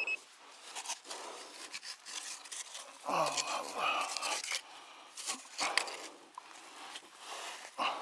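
Hand and plastic pinpointer scraping and raking loose soil and small stones in a rocky hole, with irregular clicks and scrapes throughout. A short high beep comes at the very start, and a louder pitched sound that falls in pitch comes about three seconds in.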